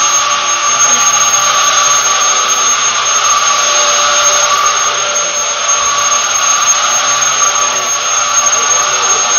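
Vacuum cleaner running steadily: a constant high-pitched motor whine over an even rushing hiss.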